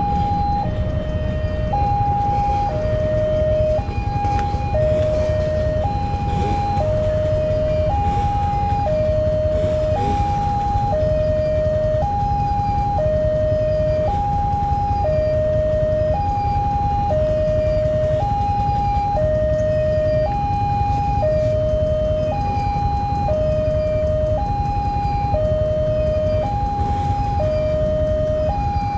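Railway level-crossing warning siren sounding continuously: two electronic tones, high and low, alternating about once a second, the crossing's signal that a train is approaching and the road is closed. A steady low rumble lies underneath.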